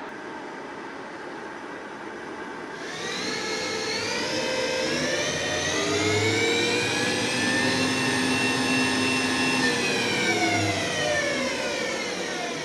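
Style BT-1500 CNC milling machine whining as its drive speeds up about three seconds in, holding a steady high pitch, then winding down near the end, over a steady background hum.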